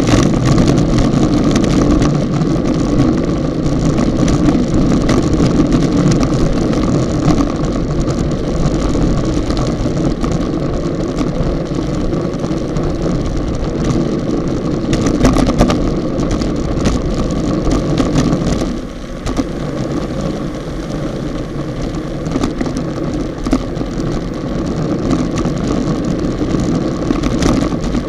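Steady rush of wind and road rumble on a bicycle-mounted action camera riding in a racing bunch at about 35–40 km/h, with scattered knocks and rattles; the noise drops a little about two-thirds of the way through.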